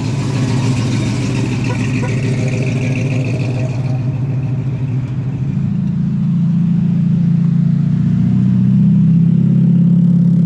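A car engine running close by, a low steady drone that gets louder about halfway through.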